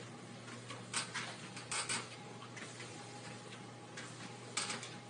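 Treadmill running with a low steady hum, broken by a few short scuffs and clicks scattered through it, most of them about one to two seconds in and again near the end.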